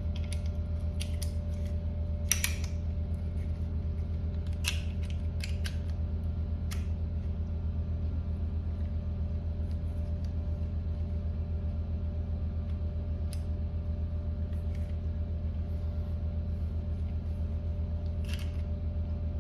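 Scattered light clicks and ticks of small metal gun parts being handled and fitted into an AR-9 lower receiver during reassembly, a few seconds apart, over a steady low hum.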